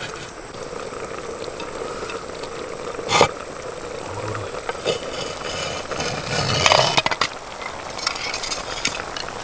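Food cooking in a pan with a steady hiss, a sharp knock about three seconds in, and a run of clinks and scrapes of a utensil against the cookware later on.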